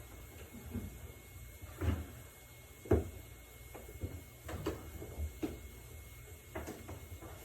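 Irregular knocks and clunks of hands and tools working on a front-load washer's door area and cabinet, with one louder clunk about three seconds in.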